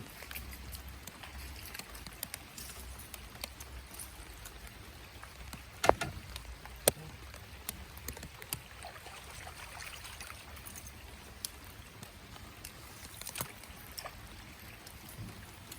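Light rain pattering on the water and the boat, with many small drip ticks. A few sharp clicks or knocks stand out, the loudest two about six and seven seconds in.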